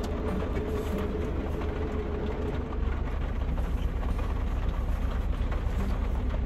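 Vehicle engine idling, a steady low rumble heard from inside the cab, which grows a little stronger about three seconds in.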